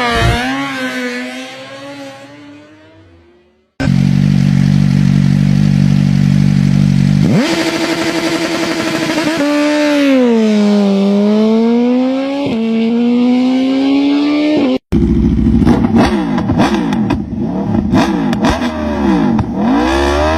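Spliced motorcycle engine sound clips. First an engine fades away. After a sudden cut it idles steadily, then revs up and down from about seven seconds in. After another cut near fifteen seconds, several engines rev with crossing rising and falling pitches.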